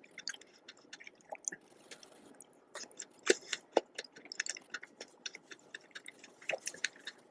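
Close-miked wet chewing with irregular sharp mouth clicks, from eating a strawberry and whipped-cream dessert.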